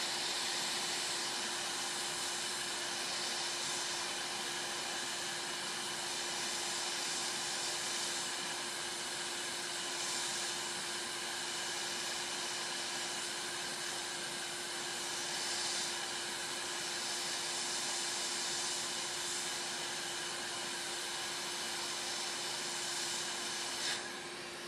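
Hot air rework station blowing a steady hiss of hot air at 50% airflow onto an SMD IC, with a steady hum underneath, melting the solder beneath the chip so it can be lifted off. The airflow drops away near the end with a brief click.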